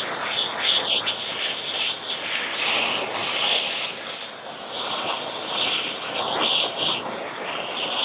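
Handheld propane torch burning, a steady rushing hiss that swells and fades every second or so as the flame is played over the carved wood to scorch it.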